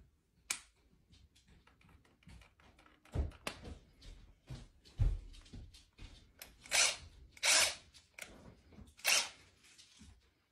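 Cordless drill triggered in several short bursts of spinning, each well under a second, most of them in the second half.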